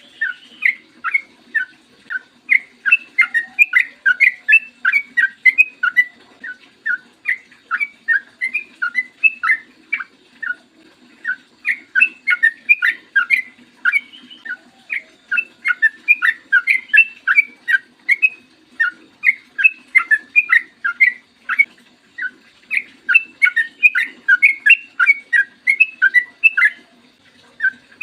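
Yellow-vented bulbul (trucukan) singing loud, rapid strings of short bubbling notes in long unbroken runs, with only brief pauses between runs.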